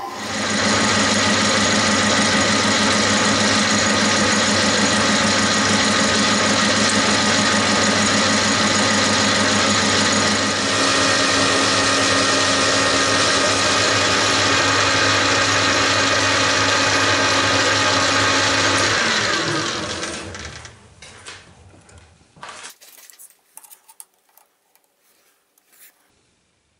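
Metal lathe running at a steady speed with a gear whine, then switched off about nineteen seconds in, its pitch falling as it spins down. A few light clicks and knocks follow.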